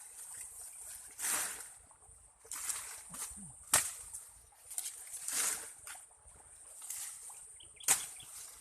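Rustling swishes of corn stalks and leaves, with two sharp snaps, typical of corn ears being broken off the stalks during harvest.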